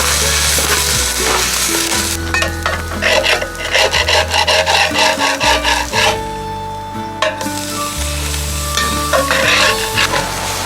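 Background music with a steady, slowly changing bass line, over food sizzling in a pan and being stirred, with a quick run of scraping strokes from about two to six seconds in.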